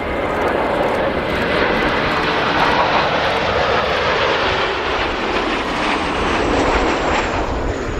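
Jet engine noise from Blue Impulse Kawasaki T-4 jets: a loud, steady rush that swells over the first second and holds. A faint high whine sinks slightly in pitch near the end.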